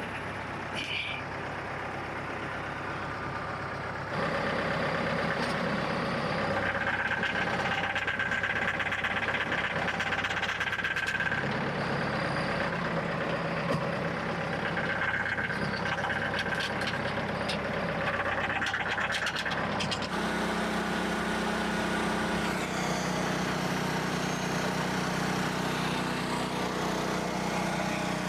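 Portable sawmill's small gasoline engine running steadily. It gets louder about four seconds in, a steady whine comes and goes over it, and the sound changes abruptly about twenty seconds in.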